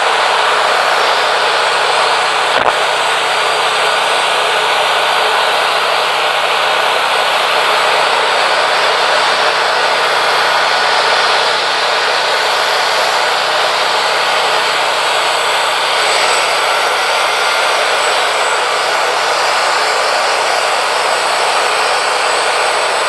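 Wood-Mizer LT40 Wide sawmill running steadily, its band blade sawing through a yellow pine cant, with one brief sharp click about two and a half seconds in.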